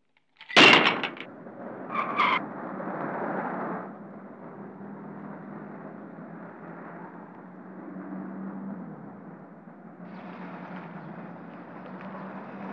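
A motor scooter topples over with a sudden loud crash, followed about two seconds in by a short horn blast. A steady engine-like rumble then runs on underneath.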